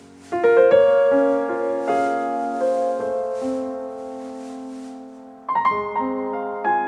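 Background piano music: a slow melody of held notes, with a new phrase starting about five and a half seconds in.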